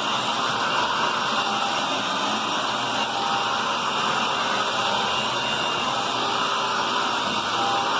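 Hoover WidePath Tempo upright vacuum cleaner running with a steady, even motor and suction noise.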